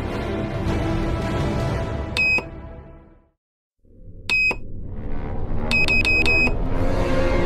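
Short high electronic beeps from a mobile phone's buttons being pressed: one, another a couple of seconds later, then four quick beeps in a row. Background film music runs under them, cutting out briefly just before the middle and coming back.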